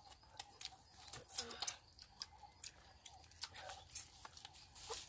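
Faint, scattered clicks and small tearing sounds of people eating grilled duck by hand.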